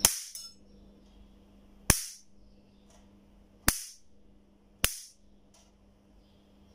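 Four sharp electric snaps as a screwdriver blade bridges a bug zapper's high-voltage grid and draws sparks, the first right at the start and the others about 2, 3.7 and 5 seconds in, over a faint steady hum. The sparks show the voltage multiplier is making high voltage again after a missing resistor in its high-voltage section was replaced.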